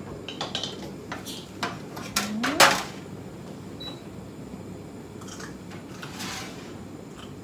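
Scattered light kitchen knocks and clicks of utensils and a small wooden cutting board. About two and a half seconds in comes the loudest moment, a knock with a short sound rising in pitch.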